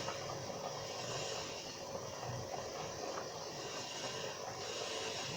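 Steady low hiss and rumble with no distinct events.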